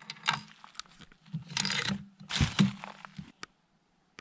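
Handling noise as a Savage Model 110 bolt-action rifle is loaded for a shot: the bolt is worked and a round chambered, with a few sharp metallic clicks among short rustles and shuffles.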